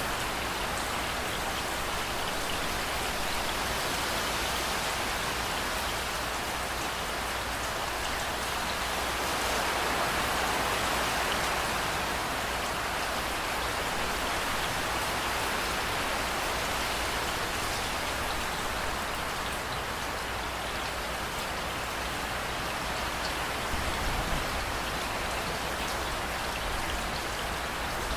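Steady rain falling, an even, dense hiss of drops. A low rumble of thunder comes in near the end.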